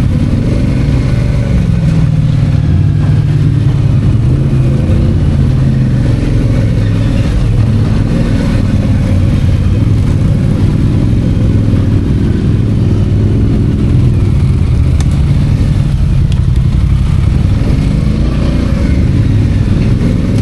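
ATV engine running while riding a trail, its pitch rising and falling a little with the throttle.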